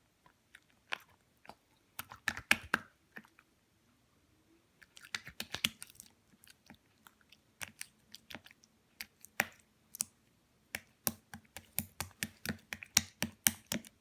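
Slime being squeezed and poked by hand, giving sharp sticky clicks and small pops in uneven bursts, densest near the end.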